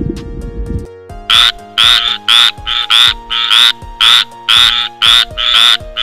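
A frog croaking: a rapid series of short, loud calls, often in pairs, starting about a second in, over background music with steady held notes.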